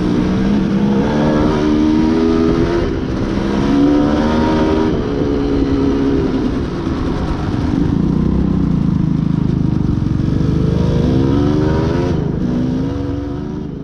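Off-road motorcycle engine running under way, its pitch rising and falling again and again as the throttle is opened and closed.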